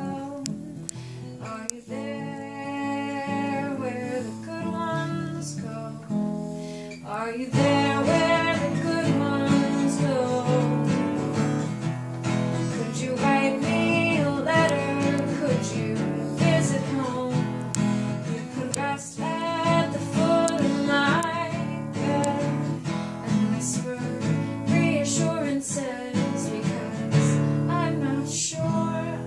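A woman singing while playing an acoustic guitar; the music gets louder and fuller about seven seconds in.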